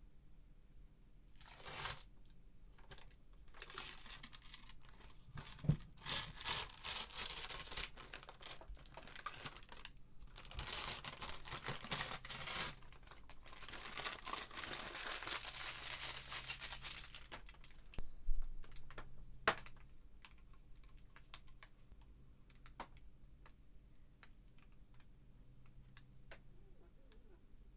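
Product packaging being torn open and crinkled by hand, in several stretches of rustling and tearing. These give way about two-thirds of the way through to scattered light clicks and taps.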